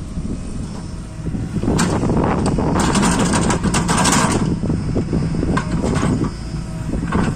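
Diesel engine of a JCB 3DX backhoe loader running steadily under work. A rushing, clattering burst rises about three seconds in and lasts roughly a second and a half.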